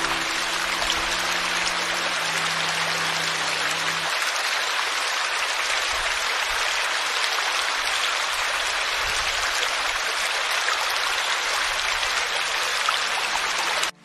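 Small forest stream splashing over a low cascade, a steady even rush of running water. Soft music with held low tones sits underneath for the first four seconds or so, then fades out. The sound cuts off suddenly at the very end.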